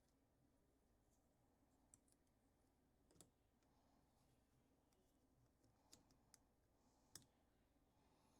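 Near silence broken by about five faint, short clicks of small tools against the parts of a Goal D9 lock being taken apart.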